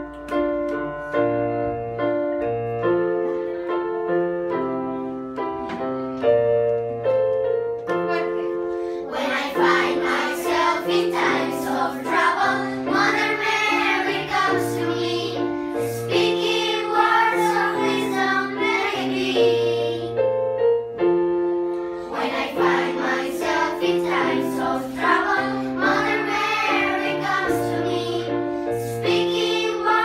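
Electronic keyboards playing a simple tune with held notes over a low bass line. A group of children starts singing along about nine seconds in, stops briefly about twenty seconds in, then sings again.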